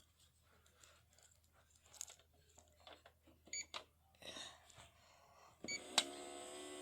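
Faint clicks and handling, then two short electronic beeps from a small kitchen appliance's buttons. Near the end it starts a steady hum, as if heating the food.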